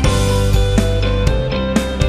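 Background instrumental music with sustained chords and a steady beat about twice a second.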